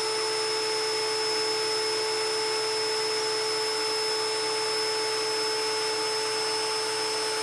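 DeWalt DCD771 20V MAX brushed cordless drill/driver running flat out with no load in first gear, the chuck free-spinning at about 470 RPM. The motor and gearbox give a steady whine that holds one pitch over a hiss.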